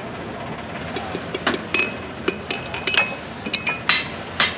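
Blacksmith's hammer striking metal on an anvil, about eight irregular blows starting about a second and a half in, each with a bright metallic ring.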